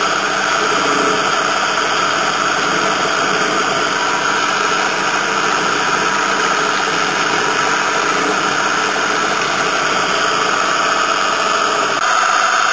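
JMD-1 benchtop milling machine running, its 4 mm end mill cutting a square pocket into a duralumin ball: a steady motor-and-spindle whir with cutting noise. The sound gets slightly louder near the end.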